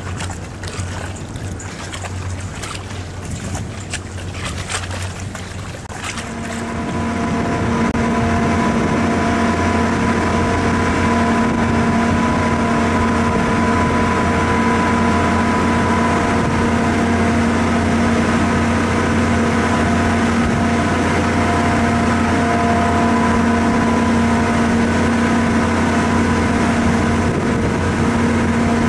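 Gusty wind buffeting the microphone for the first few seconds. About six seconds in, a ferry's diesel engine fades up and runs at a steady pitch, a constant drone with a hum.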